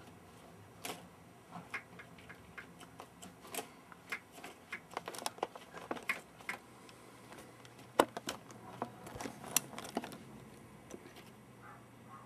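Computer keyboard keys clicking irregularly as a cat presses them with its nose and paws: scattered light taps a few a second, with one sharper knock about eight seconds in, thinning out near the end.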